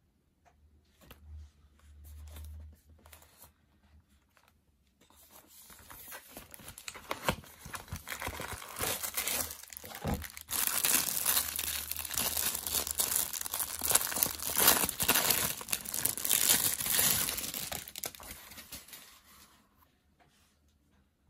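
Clear plastic packaging bag crinkling and rustling as it is handled and pulled open. The crackling builds from about five seconds in, is loudest through the middle, and dies away near the end.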